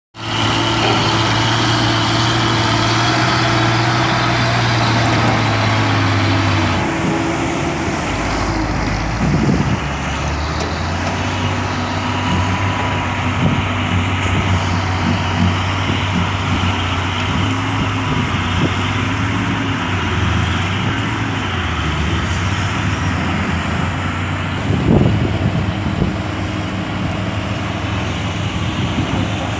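Caterpillar 320D excavator's diesel engine working under hydraulic load, its pitch dipping and rising as the machine digs and swings. There are two heavy thumps, about nine seconds in and again near twenty-five seconds, as loads of soil drop.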